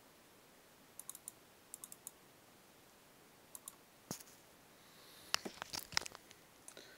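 Faint computer mouse clicks in small scattered groups: a few quick clicks about a second in, more near two seconds, and a denser run of clicks around five to six seconds in.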